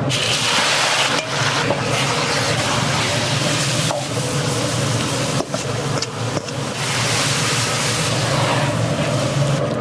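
Steady kitchen noise: a constant low hum under a hiss, with a few short clicks and knocks scattered through.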